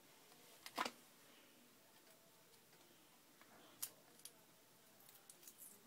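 Mostly near silence, broken by a few short, sharp clicks of a knife blade prying and cutting at a hard clear plastic package: the loudest about a second in, two more near four seconds, and a cluster of small ones near the end.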